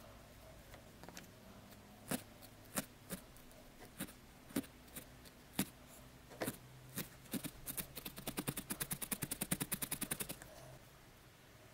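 Felting needle stabbing into wool, each stab a sharp click: a few spaced stabs, then a quick, even run of about nine a second for a couple of seconds near the end.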